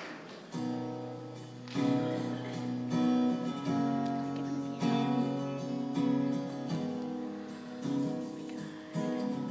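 Acoustic guitar strummed slowly through a hall's sound system, one chord about every second, each left ringing, as the last of the crowd's cheering dies away at the start.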